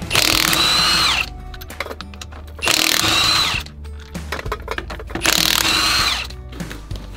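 Cordless impact wrench spinning lug nuts off a trailer wheel in three bursts of about a second each. The motor's whine drops in pitch as each burst lets off.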